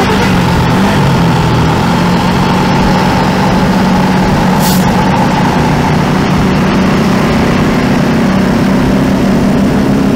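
Vehicle engine running steadily with road noise while on the move, with one short sharp hiss about halfway through.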